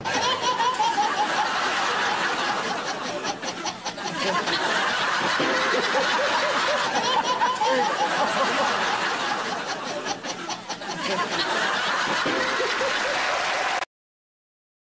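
A baby laughing hard in repeated fits over a steady noisy background; the sound cuts off suddenly near the end.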